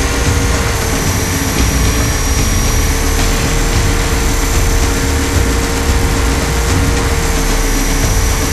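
Align T-REX 500 electric RC helicopter in flight, picked up by its onboard camera: a steady whine from the motor and drive over a heavy low rumble of rotor and wind.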